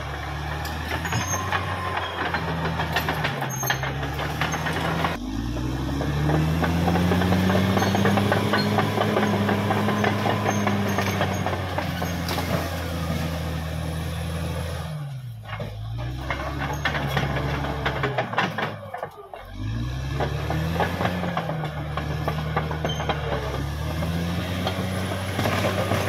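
Caterpillar D6R XL bulldozer at work: its diesel engine running loud, the engine note rising and falling again and again as the load changes, over a constant rattle. The engine note drops away briefly twice about two-thirds of the way through.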